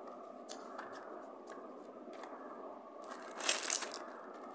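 Paper instruction booklet rustling as it is handled, with a few light clicks and one louder, brief crinkle of paper about three and a half seconds in, over a steady background noise.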